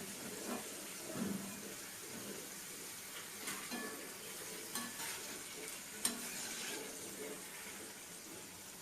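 Potatoes sizzling steadily in hot oil as a spoon lifts them out of the pan, with a few sharp taps and scrapes of the spoon against the pan, the loudest about six seconds in.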